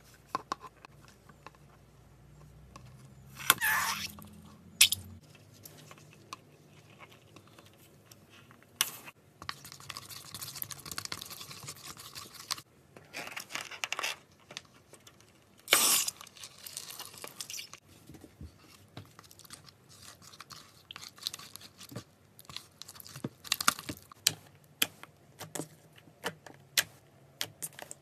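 Slime-filled stress balls being cut open: scattered sharp clicks and several longer rasping passes of a second or two as the blade goes through the skin and slime.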